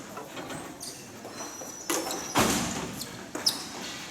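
Ball hockey play: sharp knocks of stick, ball or bodies against the rink boards, the loudest a bang with a short echoing decay about two and a half seconds in, and short high squeaks like shoes on the floor.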